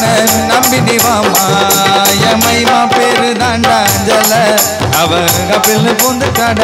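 Live band playing the instrumental break of a Tamil gana song: a wavering keyboard melody over a steady drum and bass beat, with a fast high percussion rhythm of about four strokes a second.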